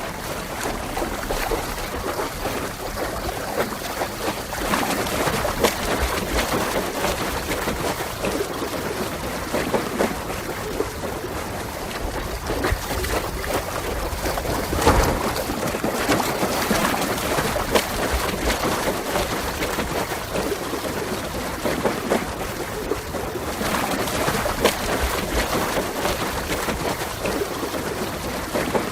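A person swimming, with water splashing and churning continuously as the arms stroke through it and many small splashes. The sound swells louder several times.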